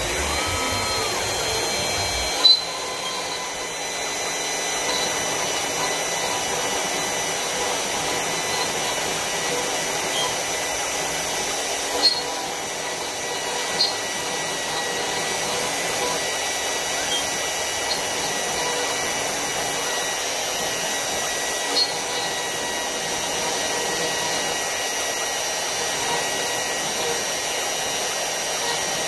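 CNC router spindle running at steady speed while the machine carries a V-bit through an engraving pass in wood, a constant whining hum with a few sharp ticks along the way.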